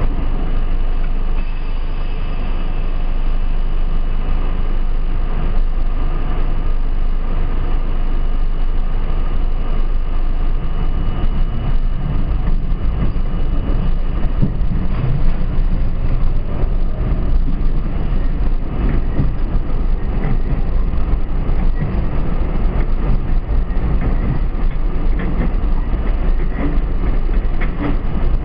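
New York City Subway train heard from the front car, gathering speed along the track: motors and steel wheels on the rails, a steady rumble that grows heavier partway through, with scattered clicks from the rails in the second half.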